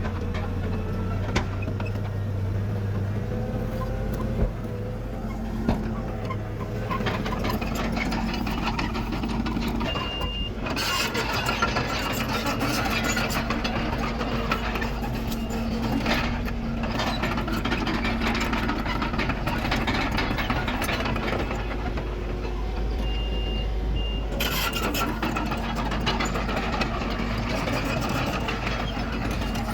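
Komatsu D31PX crawler dozer's diesel engine running steadily under load, with the clatter of its tracks and blade working dirt. Short high beeps like a reversing alarm sound once about ten seconds in and twice about 23 seconds in.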